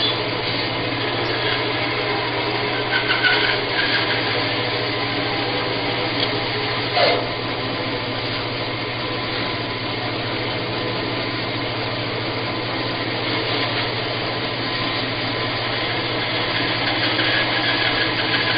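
Bandsaw running with a steady low motor hum as its blade cuts through a canary wood blank, with a couple of brief squeaks along the way.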